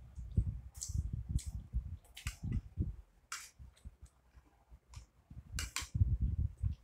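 Two people eating at close range: chewing and sharp lip-smacking clicks, with spoon taps on a plate and irregular soft thuds on the table.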